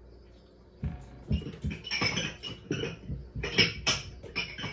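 Rummaging among cups: a quick, irregular run of light knocks, clicks and rustles as cups are handled and moved about, starting about a second in.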